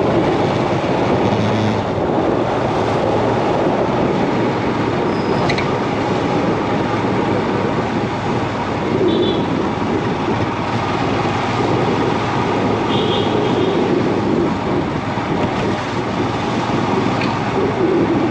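Steady motorcycle riding noise: engine running with road and wind rumble, picked up through a handlebar-mounted action camera.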